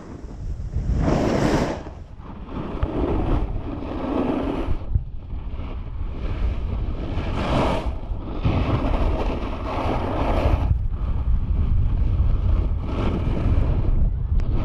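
Wind buffeting the microphone as a snowboard rides down a groomed run. A rushing scrape of the board's edge on the snow rises on each turn, about half a dozen times.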